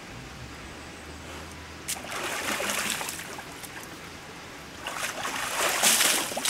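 A brown bear splashing water in a stone trough with its front paws: a bout of splashing about two seconds in, and a second, louder one near the end.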